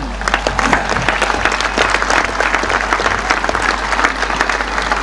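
A large crowd applauding, dense steady clapping.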